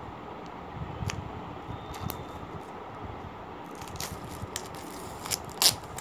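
Plastic shrink-wrap on a phone box crinkling as it is cut and pulled off, with scattered sharp crackles and clicks, the loudest near the end.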